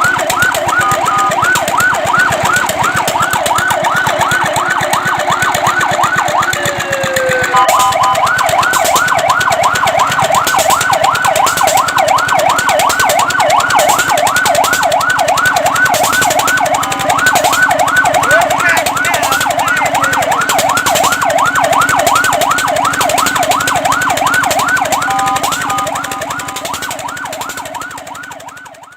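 Fire truck electronic siren in a fast yelp, its pitch sweeping up and down about four times a second. There is a brief break with a falling tone about seven seconds in, and the siren fades out near the end.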